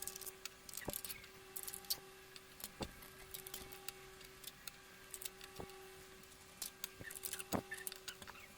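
3D printer running: a steady hum with irregular bursts of high chirps and ticks as its stepper motors move, and a few sharp knocks.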